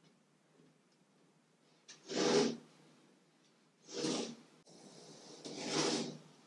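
A pad rubbed by hand over a wooden strip-built kayak hull: three rubbing strokes about two seconds apart, the third the longest.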